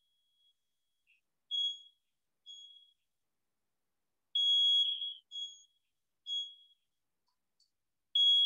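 Building fire alarm going off: six high-pitched electronic beeps at irregular spacing, the one about four seconds in held longer than the rest.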